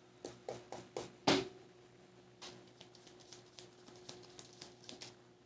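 Tarot deck handled against a wooden table: five sharp taps about four a second, the last one loudest, then the cards shuffled by hand with a run of quick, softer clicks.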